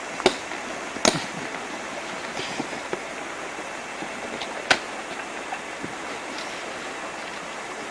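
Steady rushing of river water around a canoe, with three sharp knocks: two close together at the start and one in the middle.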